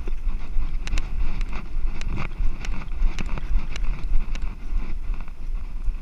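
Wind rumbling on a GoPro's microphone as the German shorthaired pointer carrying it moves through dry grass, with a steady swishing hiss and irregular clicks and knocks as the camera is jostled. It eases off somewhat near the end.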